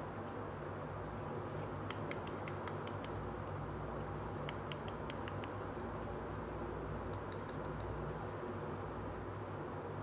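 Small plastic toy pieces clicking and tapping as they are handled, in a few quick clusters of light clicks, over a steady low hum.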